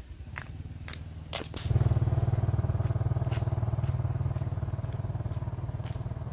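A few sharp clicks, then a motorbike engine starts about one and a half seconds in and runs steadily with a low, even pulse.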